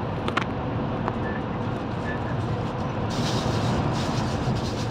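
Steady low rumble of a bus driving through a road tunnel, heard from inside the cabin. About three seconds in, an oncoming vehicle passes with a brief rush of hiss.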